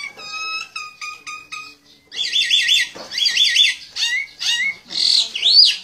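Myna calling shrilly: a run of short sharp notes, a brief pause about two seconds in, then several bursts of fast chattering and a rising whistle near the end.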